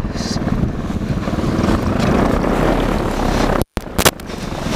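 Paramotor's Bailey two-stroke engine running with its propeller turning behind the pilot during a launch run, mixed with wind noise on the microphone. Near the end the sound cuts out for a moment, followed by a sharp click.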